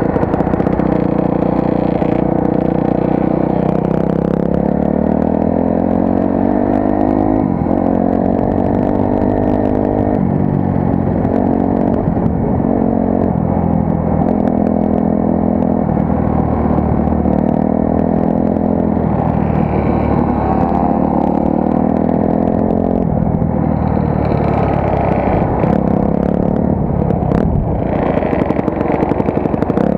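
Honda CRF250R's single-cylinder four-stroke engine pulling under way. The revs climb and fall back again several times as it shifts and rolls on and off the throttle.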